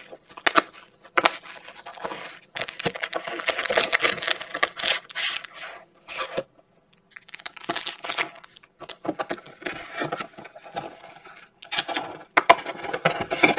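Cardboard hobby box and foil-wrapped trading-card packs being handled: irregular rustling, scraping and tearing of cardboard with crinkling foil, with a pause of about a second midway.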